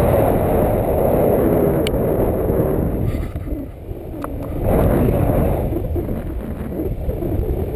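Wind rushing over an action camera's microphone in paraglider flight: a steady low rumble that eases briefly about four seconds in.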